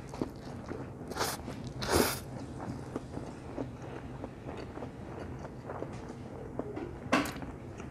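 A person slurping stir-fried instant noodles off chopsticks: three slurps, the loudest and longest about two seconds in and another near the end, with quieter chewing in between.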